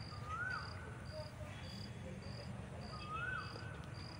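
Faint insect chirping, likely a cricket, in short, evenly spaced chirps at about two a second. A rising-then-falling whistled call comes twice, near the start and about three seconds in.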